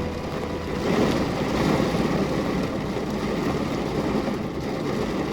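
Steady rain, an even hiss. A low hum underneath stops just under a second in.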